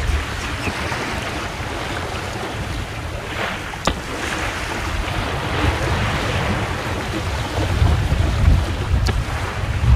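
Water rushing and slapping along the hull of a small sailing yacht under way in a chop, with wind buffeting the microphone. The buffeting grows heavier in the last few seconds, and there are two light clicks, one mid-way and one near the end.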